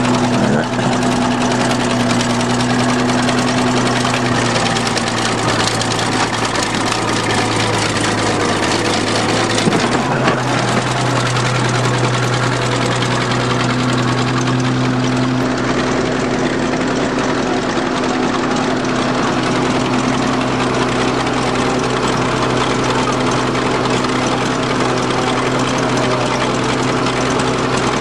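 Crawler bulldozer's diesel engine running steadily at low speed, with a constant heavy hum that shifts slightly in pitch a couple of times.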